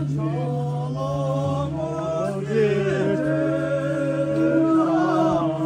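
Tibetan Buddhist ceremonial music for a welcome procession: a steady low drone held throughout, under a wavering, sliding chant-like melody.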